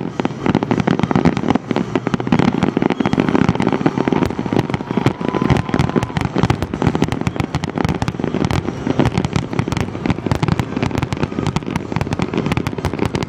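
Fireworks going off in a dense, continuous barrage of rapid cracks and bangs.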